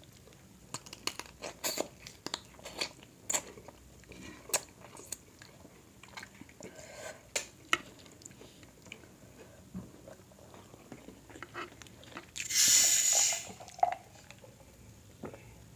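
Close-up eating of a spicy seafood boil: chewing, with sharp clicks and crunches of shrimp shell and corn being bitten. Near the end there is one loud slurp lasting about a second.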